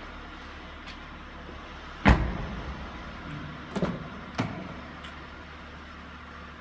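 A 2003 Honda Pilot's door shut with one loud thud about two seconds in, then two sharper clacks of the door latch and handle over a second later as it is opened again, over a steady low hum.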